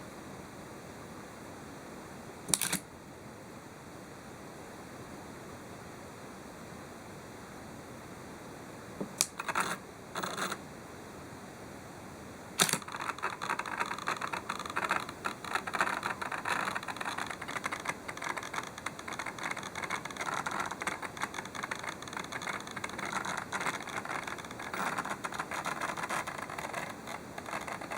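Nikon AF-S 16-85mm f/3.5-5.6 zoom lens mounted on a D5500 body making an abnormal mechanical noise with the camera powered on: a short click a few seconds in, a few brief buzzy bursts around ten seconds, then a sharp click followed by a continuous fast crackling rattle. The uploader reports this noise is loudest while zooming and in live view, the sign of a fault inside the lens.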